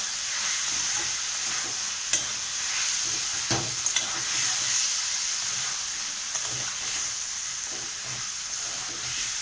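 Yardlong beans and potatoes sizzling as they fry in a metal kadai while a flat spatula stirs and scrapes through them against the pan. A few sharp knocks of the spatula on the metal come through, the loudest about two seconds in.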